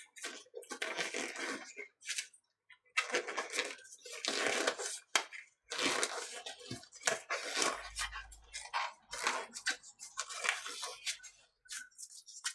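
Rustling and crinkling handling noise in a series of short irregular bursts, with a brief low thud about two-thirds of the way through.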